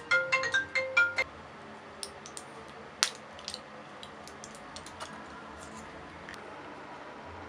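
A short melody of bright plinking notes that stops about a second in, then a low steady background with scattered faint clicks and crackles and one sharp click about three seconds in, as round tablets are pressed out of a foil blister pack.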